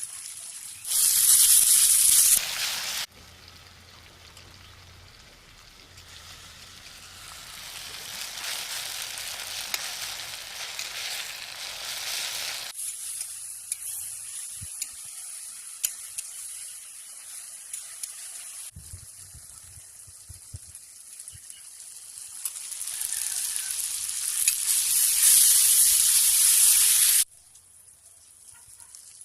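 Food sizzling and frying in a hot pan, heard in several stretches that start and stop abruptly, loudest briefly about a second in and again near the end.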